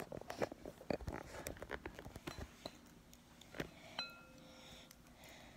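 A metal spoon clicking against a bowl while stirring slime, a quick run of small clinks that thins out after about three seconds. A faint steady tone sounds for about a second near the end.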